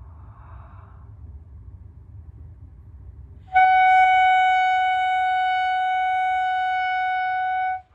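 A faint inward breath, then about halfway in a single high clarinet-mouthpiece tone starts with a strong attack and is held steady for about four seconds at one pitch before cutting off. It is a long-tone embouchure exercise: the note is sounded on the mouthpiece with a flat chin and top teeth set on the mouthpiece.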